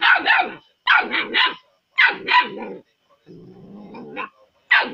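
A six-week-old puppy barking: high-pitched yapping barks in quick runs of about three, with a short low growl about three seconds in.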